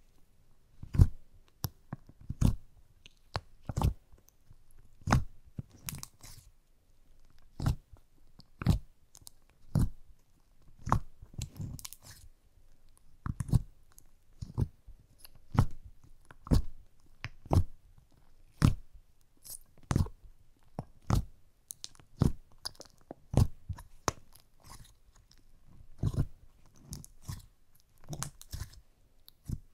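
Fingers poking and pressing into a thick fudge slime in its jar, giving short sharp sticky pops at an uneven pace, about one every second.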